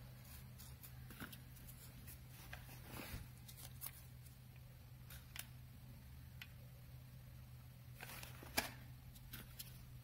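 Faint rustling and scattered light clicks of corrugated cardboard pieces being handled and pressed together, with one sharper click about eight and a half seconds in, over a steady low hum.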